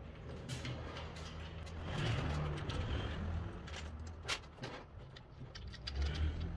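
Scattered light metal clicks and knocks of washers and bolts being handled while the engine mounts are fitted, over a steady low rumble.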